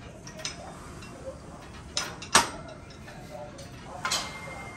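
Scattered metallic clicks and clinks of gym equipment, with one sharp, loud clank about two and a half seconds in and a smaller one near four seconds.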